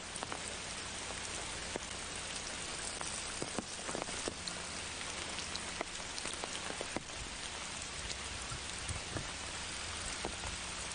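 Rain falling on a river: a steady hiss with scattered light ticks.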